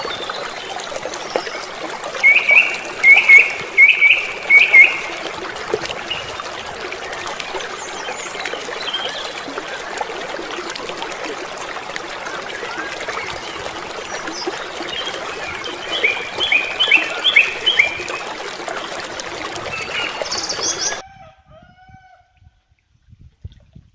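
Bird calls over the steady rush of river water: a series of about four loud, short, rising calls a couple of seconds in, and another series around two thirds of the way through. The sound cuts off abruptly near the end.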